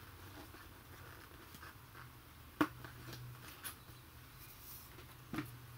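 Faint handling of a cardboard toy box: light rustles and small taps, with one sharp click about two and a half seconds in, over a low steady hum.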